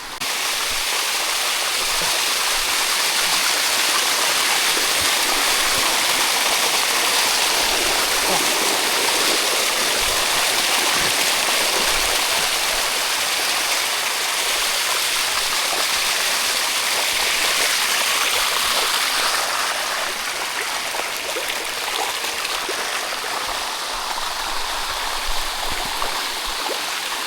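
Water of the Sticky Waterfalls rushing and splashing down its cascade over solid rock: a steady, even rush that eases slightly after about twenty seconds.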